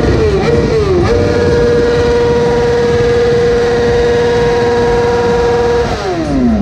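Motorcycle engine revved in quick blips, then held at one steady high pitch for about five seconds before the revs fall away near the end.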